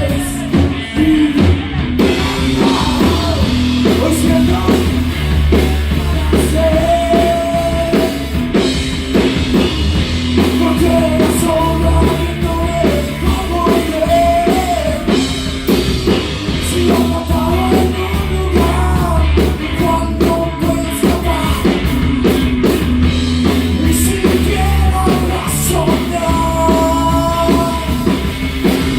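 Rock band playing a song, with a sung lead vocal over bass and drums.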